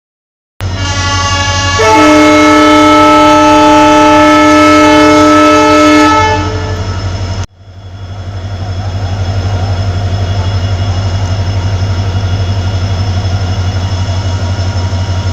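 Locomotive horn of the Farakka Express sounding one long, loud blast of about six seconds, the train's departure signal. After a sudden cut about seven seconds in, a steady low rumble of the train running.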